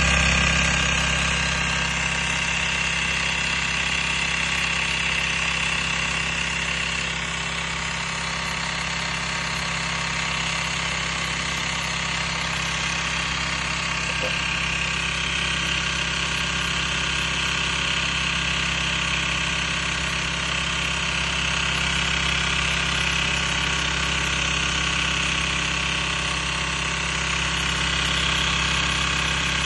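Yuki YK-5530-DZ industrial zigzag sewing machine with a direct-drive motor running steadily, sewing a zigzag stitch.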